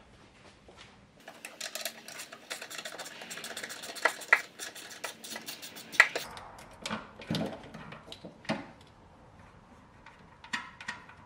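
Ratchet wrench clicking rapidly for about five seconds as a nut is worked loose, with a few louder clacks, then stopping. It is followed by scattered single knocks and clinks of the tool against metal.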